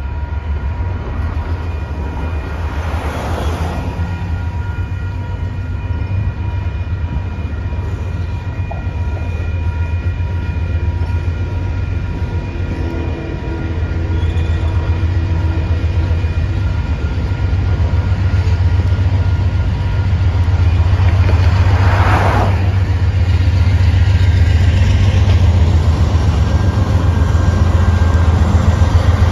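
Freight train cars rolling past: a steady, heavy low rumble of wheels on the rails that grows louder in the second half. Two brief swells of noise come about 3 seconds in and again about 22 seconds in.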